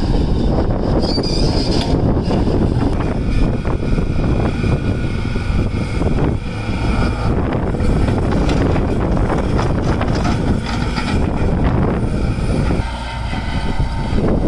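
A Tata Hitachi crawler excavator's diesel engine runs under load while it digs and swings, with a steady high whine over the rumble and occasional clunks as soil is dropped into a tractor trailer.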